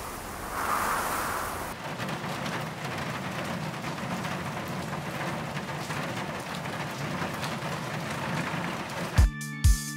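Rain pattering on a window pane: a steady hiss with fine crackle of drops. It opens with a different rushing noise that cuts off about two seconds in, and about nine seconds in music with a steady, deep drum beat comes in.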